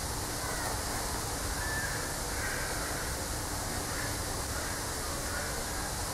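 Steady rushing background noise, with a few faint short calls about two, four and five seconds in.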